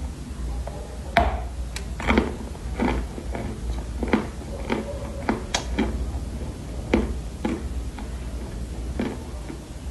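Close-miked crunching of dry Chinese loess clay being bitten and chewed: sharp, irregular crunches, about one or two a second, over a steady low hum.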